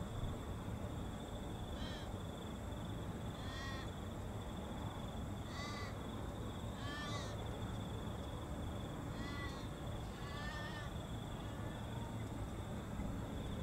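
A crow cawing repeatedly, about seven calls a second or two apart, some of them drawn out and wavering, over a steady low rumble.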